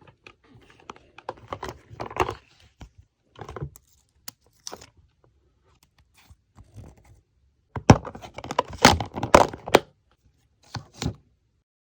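Plastic packing materials being handled: irregular crinkling, rustling and tearing as photocards are packed by hand, loudest in a dense stretch about two-thirds of the way in, with a short last burst near the end.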